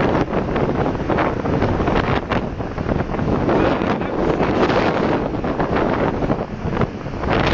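Strong storm wind buffeting the microphone in gusts, over the rush of storm waves breaking on the shore.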